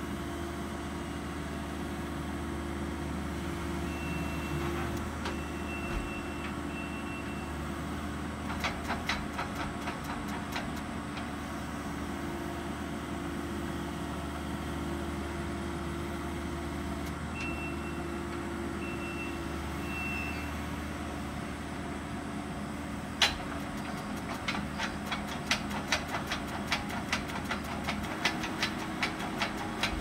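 Compact track loader's diesel engine running steadily, with its backup alarm giving short runs of three beeps twice. Bursts of rapid clicking and clanking, with one sharp knock about two thirds of the way in, followed by steady clicking to the end.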